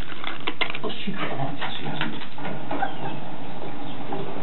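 Cats chewing and crunching broken poppadom, a scatter of crisp crackling clicks, thickest in the first two seconds, over background voices.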